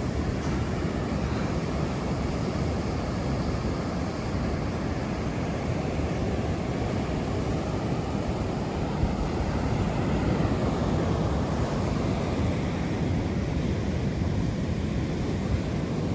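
Pacific surf breaking steadily on the beach, a continuous low rumble of waves with wind rumbling on the microphone.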